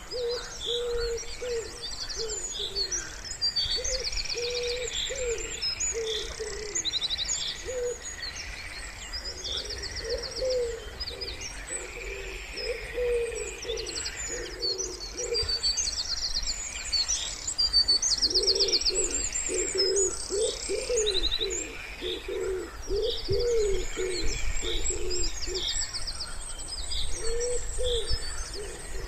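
Wood pigeons cooing in repeated phrases of low notes, heaviest near the middle of the stretch, while small songbirds keep up high chirps and quick trills.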